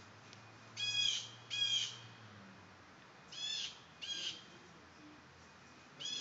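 A bird calling outdoors: three pairs of short, harsh, high calls, each pair quick-fire, spaced a couple of seconds apart, the last pair near the end.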